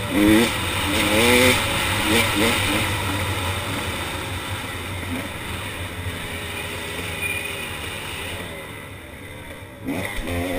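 KTM 300 XC two-stroke dirt bike engine under way, its revs rising and falling quickly with the throttle, easing to a quieter steady run in the middle and picking up again near the end.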